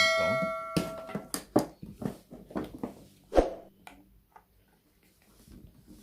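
Blender parts being handled and taken apart: a struck part rings briefly at the start, followed by a run of sharp clicks and knocks that die away about four seconds in.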